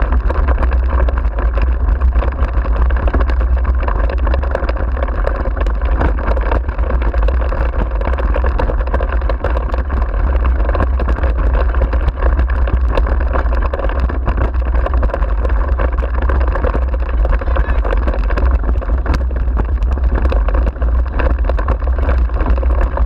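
Steady wind rumble on the microphone, with the rattle and crunch of a dog-pulled rig's wheels rolling fast over a gravel track.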